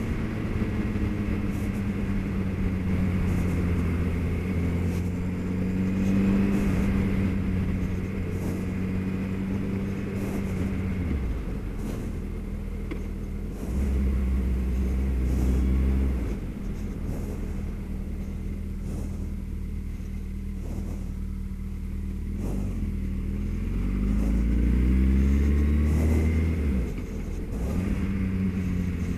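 Suzuki B-King motorcycle's inline-four engine running under way, its pitch rising and falling as the throttle is opened and closed, with two louder surges of acceleration about 14 and 24 seconds in. Wind rush on the helmet-mounted camera's microphone runs under it.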